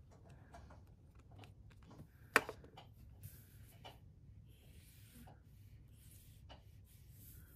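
Cotton swab rubbed across paper to lay down a fountain pen ink swatch: faint, scratchy brushing in short strokes, with one sharp tap a little over two seconds in.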